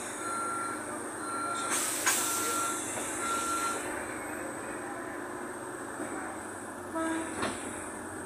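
Door warning beeps of a Toshiba electric train car, short even beeps at one pitch, about one a second for roughly four seconds, over the train's steady rumble. A loud burst of air hiss comes about two seconds in as the doors close, and a clunk with a short hiss near the end.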